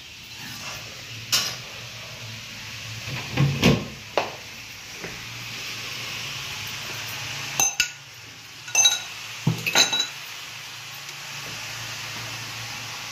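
Steel kitchen pots and utensils clanking: a scattering of sharp knocks, a few of them ringing briefly like struck metal, over a steady hiss.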